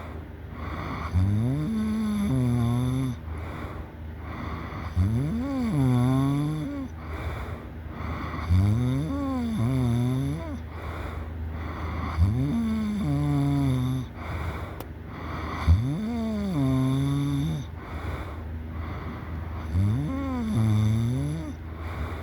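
A person snoring loudly and rhythmically, about one snore every three to four seconds, six in all. Each snore's pitch swings up and then down. A steady low hum runs underneath.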